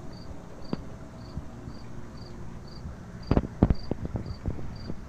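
Insect chirping in an even rhythm, about two short high chirps a second, with a few sharp knocks about three and a half seconds in.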